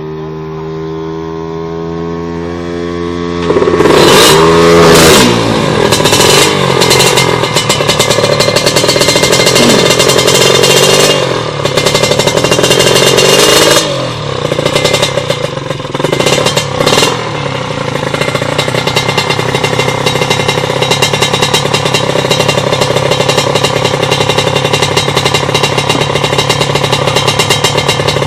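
Kawasaki Ninja two-stroke motorcycle engine, tuned up to 155cc, running. It starts steady, then a few seconds in is revved hard several times with a rapid crackling rattle, gives a few short blips, and settles into a fast, even, clattering run.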